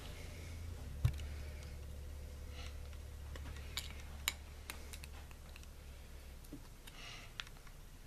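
Scattered light metallic clicks and taps as a thin tool works lubed needle roller bearings into the bore of a T90 transmission cluster gear, over a low steady hum. One sharper click comes about a second in, and a cluster of clicks follows a few seconds later.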